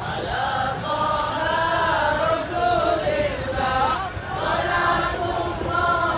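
A group of voices chanting together in unison, a melodic devotional chant with drawn-out notes, the selawat in praise of the Prophet typical of a Maulidur Rasul procession.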